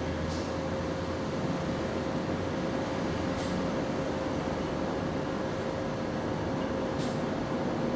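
Steady mechanical hum, like a running machine or air-conditioning unit, with one constant mid-pitched tone through it and three faint short ticks spread across it.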